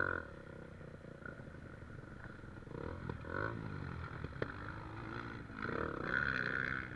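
Trail motorcycle engine running at low revs, its pitch rising and falling as the throttle is worked, louder again near the end.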